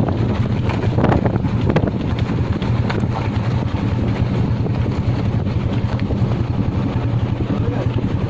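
Royal Enfield motorcycle engine running at a steady speed while riding, with wind buffeting the microphone and a few short knocks.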